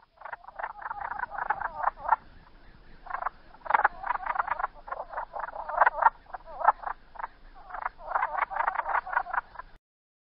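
Malaysian horned frog (Megophrys montana) calling: several bouts of fast, rattling pulsed croaks with short pauses between them, ending shortly before the close.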